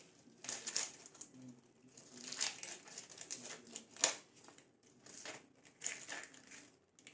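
Dry, papery onion skin crackling and rustling in irregular bursts as it is peeled and scraped off the bulb with a kitchen knife, with one sharp click about four seconds in.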